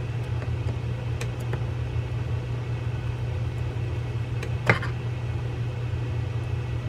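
Flat-blade screwdriver turning a slotted case screw into the metal body of an Olympic Zebra 4000 spinning reel: a few faint clicks and scrapes, and one sharper click a little past the middle, over a steady low hum.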